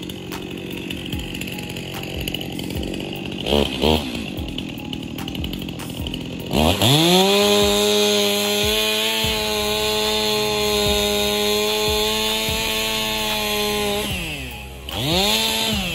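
Chainsaw engine running at a rough idle, revved briefly about four seconds in, then opened to full throttle with a steeply rising whine and held there for about seven seconds before dropping back. One more short rev comes near the end.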